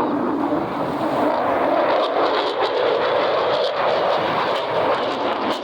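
Jet noise from an F-35 Lightning II fighter and its single afterburning turbofan engine as it flies over: a loud, steady rushing roar.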